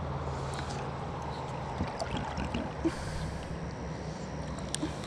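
River water running steadily, with a low steady hum underneath and a few light clicks and taps.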